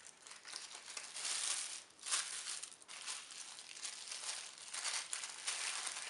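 Thin white tissue paper crinkling and rustling in irregular crackles as hands unwrap small moulded decorations from it.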